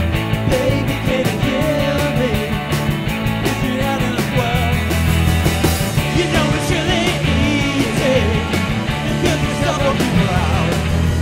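Background rock music with a steady drum beat and bass line.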